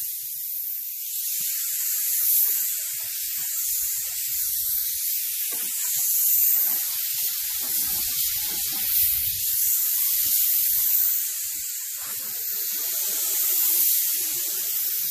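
Harbor Freight HTE gravity-feed spray gun spraying clear coat at about 20 psi: a steady, high air hiss that starts abruptly as the trigger is pulled.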